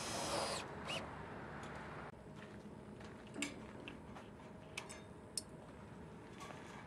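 Cordless drill driving a screw into steel fascia trim, stopping about half a second in. Then a few scattered, light metallic clicks and taps.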